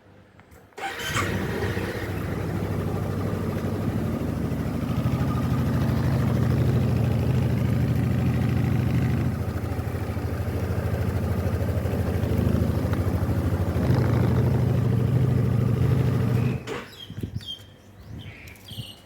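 Honda Forza 300 scooter's single-cylinder engine starting about a second in, idling steadily, then switching off about three seconds before the end.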